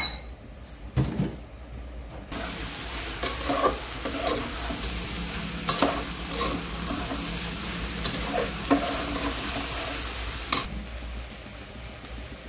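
A metal ladle stirs raw rice and peas frying in an aluminium pot, with a steady sizzle and a few scraping clicks against the pot. The stirring starts about two seconds in and stops about two seconds before the end. This is the pulao rice being fried before the water goes in.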